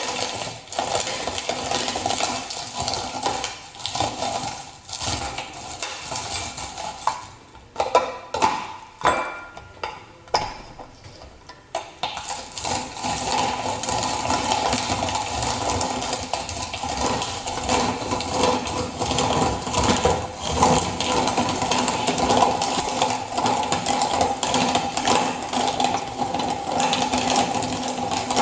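Manual meat grinder being hand-cranked: a steady mechanical whirring grind. About a third of the way in it breaks into a few knocks and short gaps, then steady cranking resumes.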